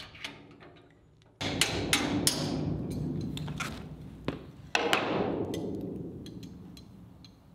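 Metal clanking on a steel tailgate frame: a loud knock about a second and a half in, a few more quick knocks, and a second loud knock near five seconds, each followed by a ringing that dies away over a couple of seconds. Light metal clicks and taps come in between.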